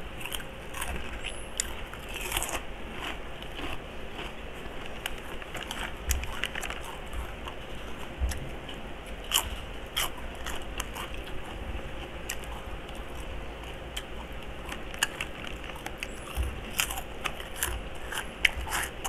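Crunchy chicharon snack being bitten and chewed close to the microphone: irregular crisp crunches and crackles.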